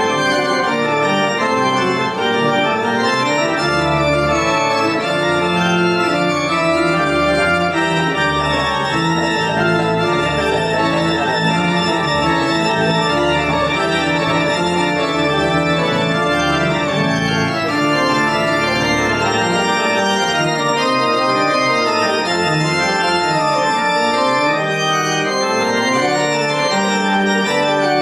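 Church organ playing a piece in full, held chords. Deep bass notes join the chords about four seconds in and drop away near the middle.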